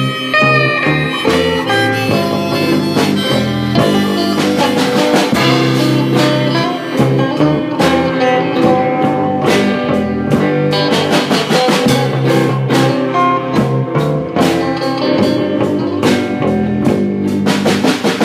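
Instrumental break in a band's song, with a drum kit keeping the beat under other instruments and no singing.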